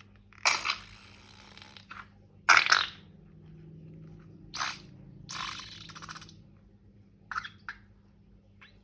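Slime being handled with balloons or piping bags: a series of short, noisy handling bursts, the loudest about half a second and two and a half seconds in, over a faint steady low hum.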